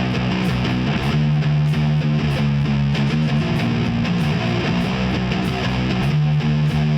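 Instrumental passage of a home-recorded nu-metal song: a distorted electric guitar riff over bass and a steady drum beat, with no vocals.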